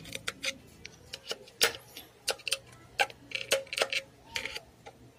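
Irregular sharp metallic clicks and taps of long-nose pliers working a circlip onto a scooter's kick-starter shaft, the loudest about a second and a half in.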